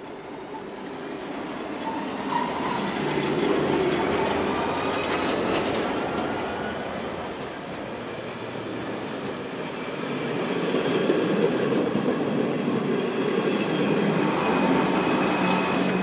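A train passing on the line, its wheel-and-rail noise swelling, easing off midway and swelling again, with thin high wheel-squeal tones and a couple of sharp clicks over the rail.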